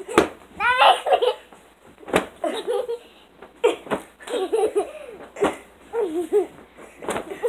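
Young girls laughing and giggling in bursts during a pillow fight, with about five thumps as the pillows strike.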